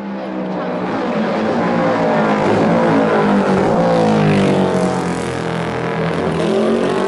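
Racing motorcycle engine at high revs, approaching and passing close by at speed, its note dropping in pitch as it goes past about four seconds in.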